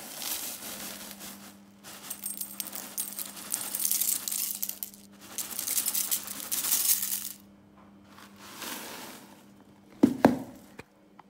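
Dry cornflakes poured into a bowl in several pours, the flakes rattling and clinking against it. A single sharper knock comes about ten seconds in.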